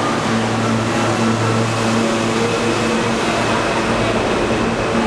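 New York City Subway train starting to pull out of an underground station: a steady hum with a high whine that rises slowly in pitch from about two seconds in as it gathers speed.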